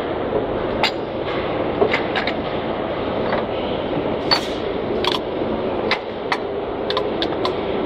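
Sharp metallic clinks and knocks of tools against the valve gear of an EMD locomotive diesel engine, a dozen or so scattered through, with a quick run of them near the end, over a steady workshop noise.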